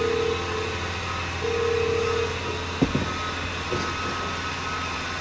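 Steady low mechanical hum, with a buzzing tone that sounds twice and a sharp knock a little past halfway.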